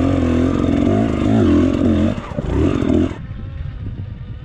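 Enduro motorcycle engine revving, its pitch rising and falling as the throttle is worked on a steep rocky climb. About three seconds in it cuts abruptly to a much quieter low rumble with wind buffeting the microphone.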